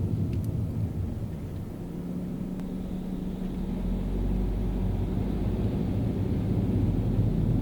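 Low engine and road rumble of a car driving on a city street. It eases off about two seconds in, then builds again with a steady low hum.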